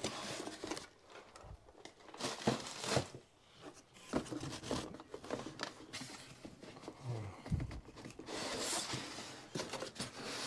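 Packaging being handled: plastic bags crinkling and cardboard boxes rustling, sliding and knocking in irregular bursts, with a longer scraping rustle near the end as an inner cardboard box is pulled out.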